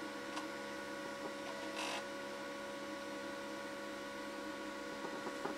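Floppy drive in an Amstrad PC2286 giving a short whirr and seek about two seconds in as it tries to read a boot disk, which fails with a disk error. The owner takes this for an iffy floppy drive. A steady electrical hum from the running equipment lies under it.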